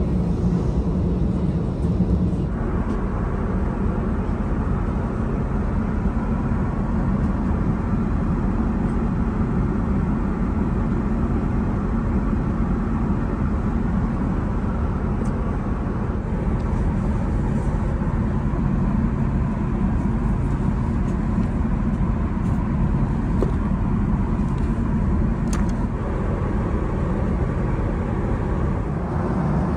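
Steady cabin noise inside an Airbus A380: a constant low rumble and air hiss, with a few faint clicks in the second half.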